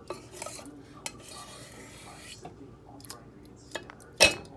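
A spoon scraping and tapping against a plastic container while scooping cooked strawberry topping, with scattered small clicks and then a couple of loud knocks near the end.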